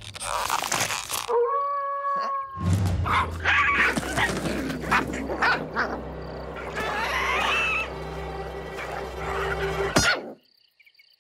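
Cartoon soundtrack of music mixed with slapstick sound effects, sharp knocks and animal-like cries, including a held pitched call early on and a wavering cry later. It all cuts off suddenly about ten seconds in.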